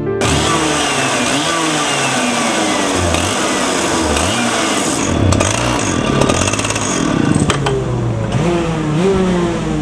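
Several go-kart engines running together, each revving up and dropping off over and over so that the overlapping pitches rise and fall.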